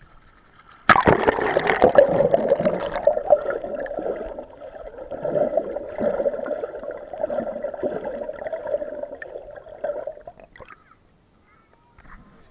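Sea water splashing and gurgling against the camera as it goes under, starting suddenly about a second in, then muffled underwater sloshing with a steady wavering hum that fades out after about ten seconds.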